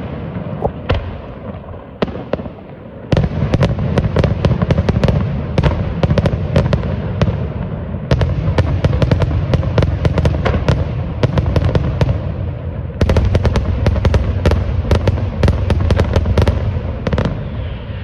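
Daytime fireworks display: dense rapid volleys of aerial shells bursting one after another over a continuous low rumble. The barrage swells in three waves, about 3, 8 and 13 seconds in.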